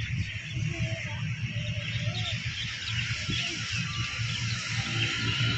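Small birds chirping and calling, short scattered calls over a steady low rumble.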